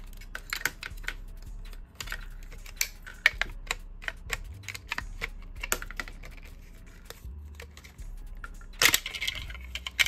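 Irregular small clicks, taps and knocks of an airsoft M4's parts being handled as the lower receiver is worked off the gearbox, with a short louder clatter near the end.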